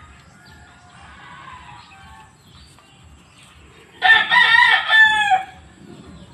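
A gamecock crowing once, about four seconds in: a loud call lasting about a second and a half that ends on a falling note.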